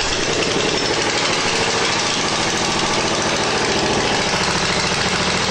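Briggs & Stratton 205 cc Snow Series engine on a snowblower running steadily just after a cold pull-start, with the choke on.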